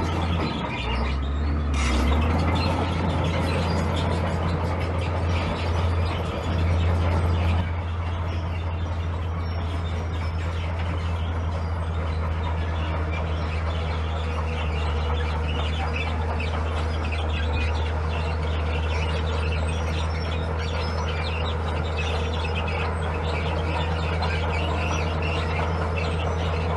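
Heavy diesel engine of earthmoving equipment running steadily under work. It is uneven in the first couple of seconds and drops slightly in level about eight seconds in.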